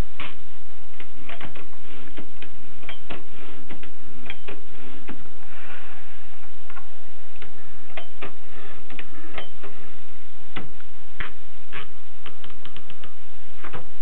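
Rheinmetall manual typewriter's mechanism clicking irregularly as its carriage and platen are worked by hand, with a few quick runs of clicks and a short rasp about six seconds in.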